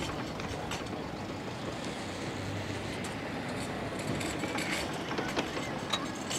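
Steady rushing wind noise across the microphone, with a few light clicks and knocks near the end.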